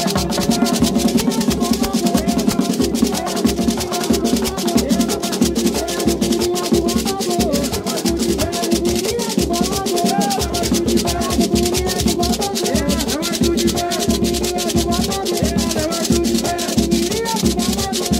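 Live Afro-Brazilian ritual music: atabaque hand drums and rattling shakers play a fast, steady rhythm while a man sings into a microphone over the dense percussion.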